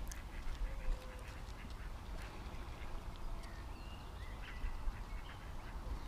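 Ducks quacking faintly now and then, over a low rumble of wind on the microphone.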